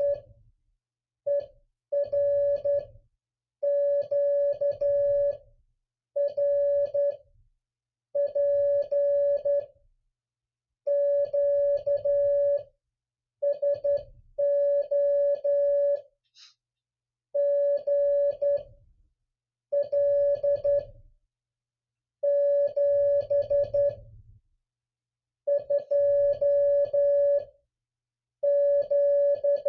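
Morse code (CW) tone near 600 Hz keyed in quick dots and dashes, sent in word groups separated by short pauses: the closing part of one side of an amateur radio contact.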